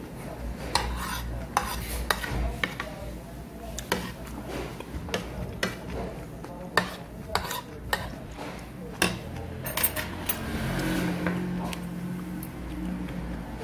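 Metal spoon clinking and scraping against a ceramic plate while scooping up sauce and vegetables, with a dozen or so sharp clinks at uneven intervals.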